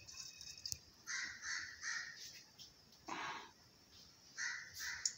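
Crow cawing in a series of short calls: three quick caws about a second in, another about three seconds in, and two more near the end.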